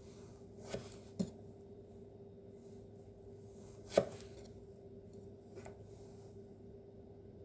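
Kitchen knife cutting carrot on a cutting board: four separate knocks of the blade against the board, the loudest about four seconds in, with pauses between them.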